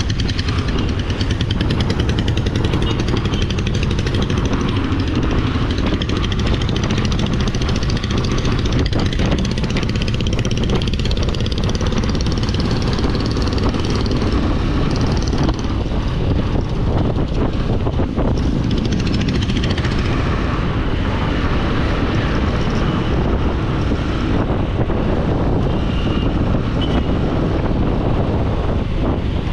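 Steady road noise from a vehicle travelling through city traffic: engine and tyre noise with wind rumbling on the microphone.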